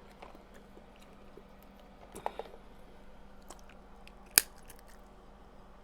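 Close-miked eating of crab legs: quiet chewing and small mouth clicks, with a few light cracks around two seconds in and one sharp snap about four seconds in.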